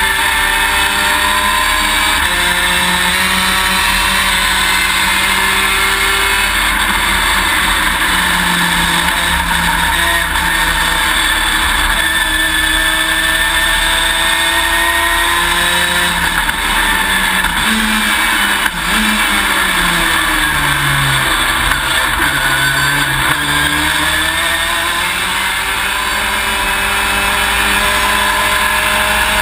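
V6 race car engine heard from inside the cockpit at racing speed. The pitch climbs and drops back again and again as the driver shifts up through the gears. About two-thirds of the way in the pitch falls away, then climbs again, over a steady rush of wind and road noise.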